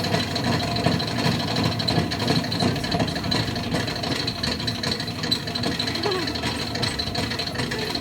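A machine motor running steadily at an even pitch, with a constant high whine over a low hum.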